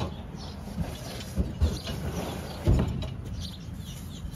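A Hobie Pro Angler kayak hull slides forward over a hitch-mounted bed extender into a pickup bed, giving low knocks and scraping. A heavier thump comes nearly three seconds in.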